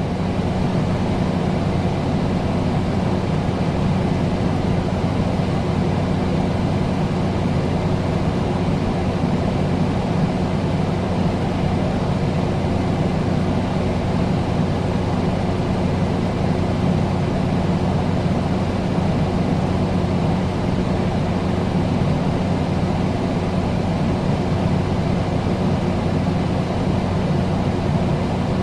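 Air conditioner running steadily: an even rush of air over a low hum.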